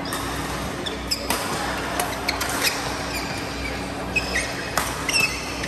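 Badminton rally: rackets strike the shuttlecock with several sharp cracks, and court shoes squeak briefly on the synthetic court floor, over a steady low hum of the hall.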